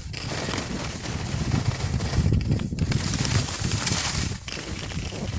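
Skis scraping and chattering over hard-packed snow on a downhill run, with wind buffeting the microphone; the noise eases briefly twice.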